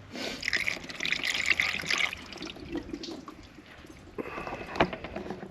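Water being poured over a car's body near the fuse box, splashing and running off, in a leak test to find where water gets into the cabin. It pours for about two seconds, stops, and starts again about four seconds in, with a sharp knock shortly after.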